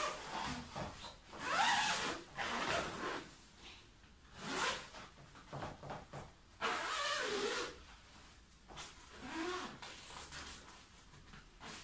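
Zipper on a Lorelli San Remo travel-cot playpen's fabric sides being pulled around the frame in several separate strokes of about a second each, with fabric rustling, as the first-level fabric is closed up; a velcro tab is fastened as well.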